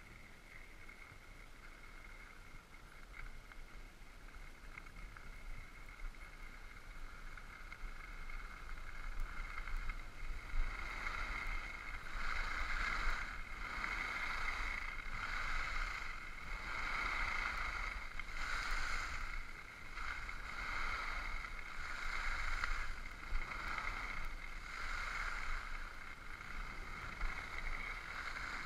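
Skis swishing and scraping over snow in a run of linked turns, a swell of noise about every second and a half, building up about ten seconds in.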